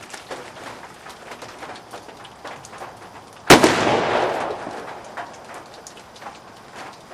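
A single sharp firework blast about halfway through, blowing up a sneaker, followed by a noisy tail that fades over about a second and a half. Faint scattered clicks before and after.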